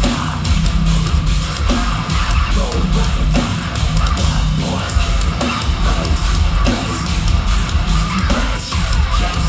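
Live metalcore band playing loudly, with distorted guitars and pounding drums.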